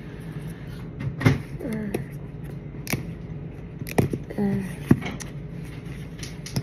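Hands working at a cardboard earbud box: several sharp clicks and snaps of the packaging about a second apart, with a couple of short murmured vocal sounds in between.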